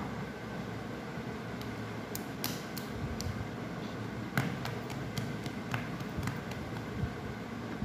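Steady hiss of a gas stove burner heating an aluminium kadai, with irregular small crackles and ticks from the pan.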